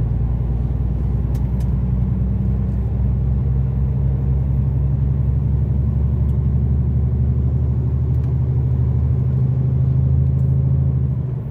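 Heavy truck's diesel engine running steadily at road speed, heard from inside the cab as a low, even drone.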